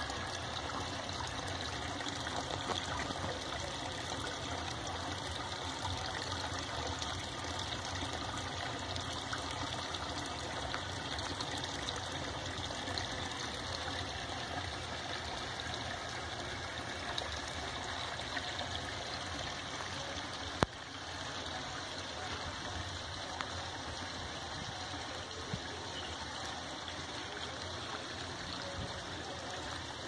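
A thin jet of water pouring into a fish tank, a steady splashing trickle: the aerator return from a washing-machine pump. A single sharp click about two-thirds of the way through.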